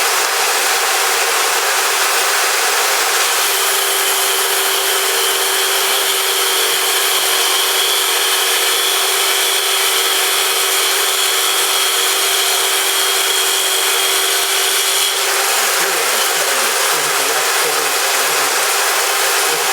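Black & Decker Matrix circular saw attachment, mounted as a table saw, running and cutting wood sheet goods. A steady high whine joins in about three seconds in and stops about fifteen seconds in, leaving a rougher, more uneven running sound.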